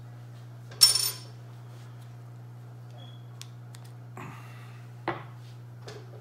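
Metal parts of a large-scale RC truck's aluminium rear shock and coil spring clinking as they are handled: one loud, ringing clink about a second in, then a few lighter clicks and taps.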